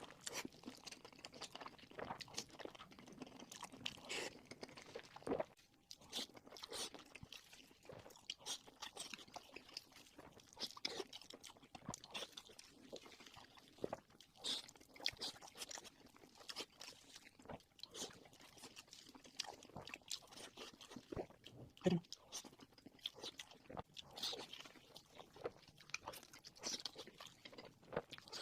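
Close-up eating sounds of crispy fried pork: irregular crunching bites and chewing, with many short sharp crackles.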